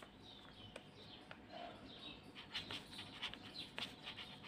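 Faint scratching of a pen writing on paper in short strokes, coming thicker in the second half.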